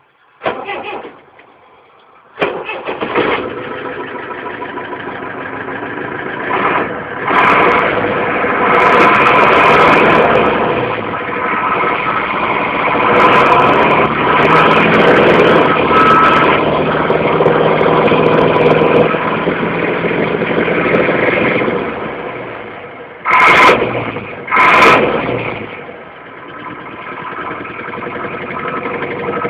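A parked 710 truck's diesel engine starting about two seconds in, then revved up and held high for a long stretch. Near the end there are two sharp throttle blips before it drops back toward idle.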